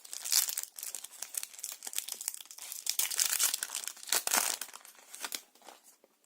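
Yu-Gi-Oh booster pack's foil wrapper crinkling and tearing as it is opened, a dense run of crackles that thins out near the end.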